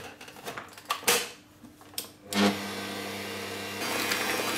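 A few knocks and clicks, then an electric stand mixer with a wire whisk starts about two seconds in, its motor running steadily as it begins beating eggs and sugar. It gets louder near the end as the speed goes up.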